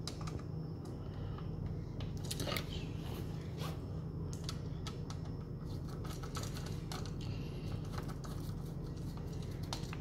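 Scattered light clicks and scrapes of copper wire and a light switch being handled with pliers and fingers, over a steady low hum.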